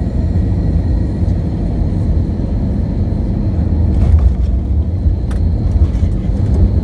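Airliner cabin noise during the landing roll: a loud, steady low rumble of the engines and the wheels on the runway, with a couple of faint clicks about four and five seconds in.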